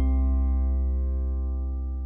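Background music: a held chord slowly fading away.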